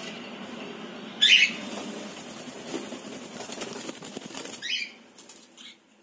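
Male cockatiel giving two short, loud contact calls to its mate, the first about a second in and a shorter, falling one near the end. Scuffling and wing-flapping sounds come between and after them as the bird moves.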